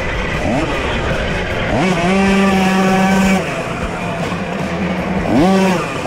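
Single-cylinder 50 cc two-stroke engine of a Puch Maxi racing moped, heard onboard at race pace. It starts off the throttle, revs up about two seconds in and holds high revs, drops off about halfway, and revs back up near the end.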